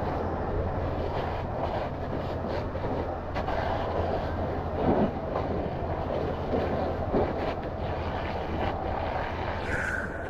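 An engine running steadily with a low hum, over a rattling, noisy background with scattered knocks. A short high-pitched tone sounds just before the end.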